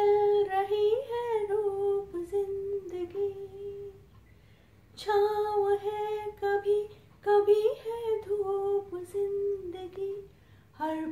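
A woman singing a slow melody unaccompanied, in long held notes, in three phrases with a short pause after the first.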